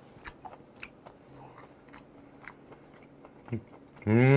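Close-miked chewing of boiled gooseneck barnacle meat: quiet wet mouth clicks at irregular intervals. Near the end comes a short hummed 'mmm', rising then falling in pitch.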